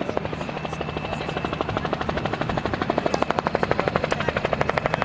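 Bell 47 helicopter with the Soloy turbine conversion approaching: rapid, even slapping of its two-blade main rotor over a thin steady turbine whine. The slapping grows louder about three seconds in as it nears.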